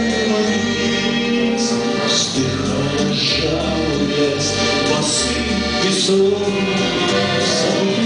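A man singing a waltz to his own button accordion, the accordion's chords and bass notes running steadily underneath the voice.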